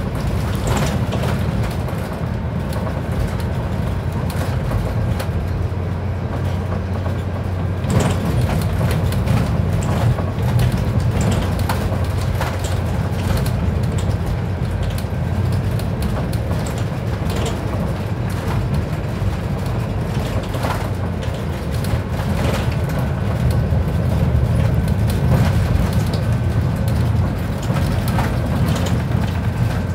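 Scania Citywide CN280UB city bus heard from inside while driving: a steady low drone of engine and road noise, with occasional knocks and rattles from the bus body, the sharpest about eight seconds in.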